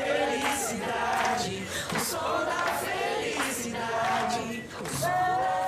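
Pop song's closing section: a group of voices singing together over music with percussive hits.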